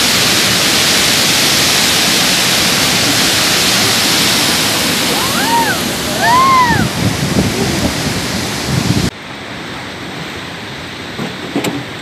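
Steady roar of Chitrakote Falls, a large waterfall, heard from a small boat on the pool below. About midway two short calls rise and fall in pitch. About nine seconds in the roar drops abruptly to a softer rush of water.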